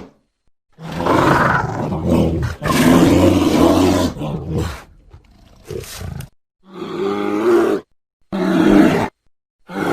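Designed creature sound effects for an infected Argentinosaurus, a sauropod dinosaur: a series of low-pitched roars and groans. A long call comes about a second in, followed by four shorter calls, each cut off cleanly with brief silences between them.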